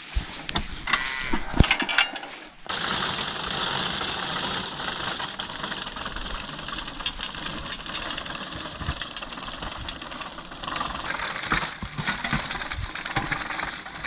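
Horse-drawn sickle-bar mower running in grass, its cutter bar making a rapid, steady clatter. Before that come a few scattered knocks, and the clatter starts about two and a half seconds in as the team pulls off.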